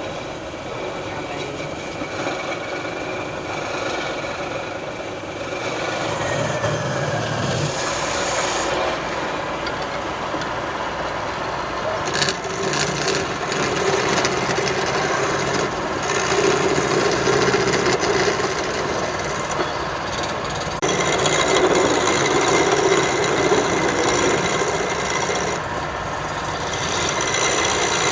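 Wood lathe running, with a hand tool rubbing and scraping against the spinning wooden workpiece. The scraping swells and eases every few seconds as the tool is worked across the wood.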